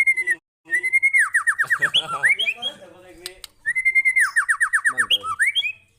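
White-rumped shama (murai batu) singing loudly. It repeats one phrase twice: a held whistle, then a fast run of falling notes, then rising whistles, with short pauses between the phrases.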